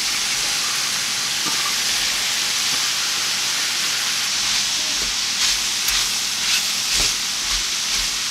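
Browned sausage and onion frying in a stainless steel skillet as shredded cabbage is tipped in, a steady sizzling hiss. From about five seconds in, a few short scrapes and clicks of a plastic spatula stirring the cabbage through the meat.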